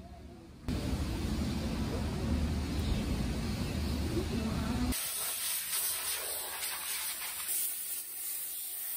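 A loud, steady rumbling noise starts suddenly about a second in, then cuts abruptly about five seconds in to the steady high hiss of a compressed-air blow gun blasting water off a car's bodywork.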